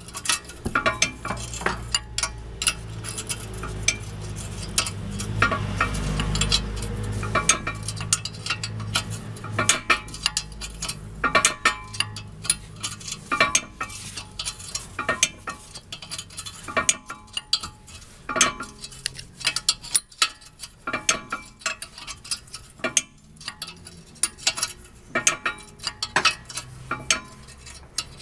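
Metal hand tools clinking and knocking against a car's front suspension parts as its bolts are worked loose, many irregular sharp clicks throughout. A low steady hum runs under the first ten seconds or so.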